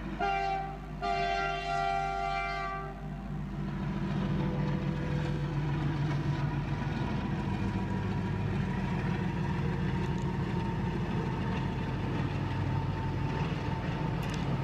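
WDG-4G diesel locomotive sounding its horn twice, a short blast and then a longer one of about two seconds. After the horn its diesel engine runs with a steady low drone as it hauls a freight train past.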